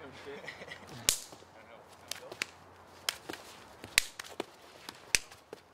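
A series of about eight sharp, irregularly spaced cracks, the loudest about four seconds in.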